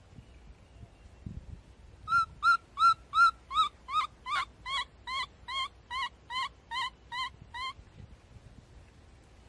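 Baby monkey giving a run of about sixteen short, high-pitched calls, roughly three a second, each rising at the end. The calls start a couple of seconds in, grow gradually quieter and stop before the end.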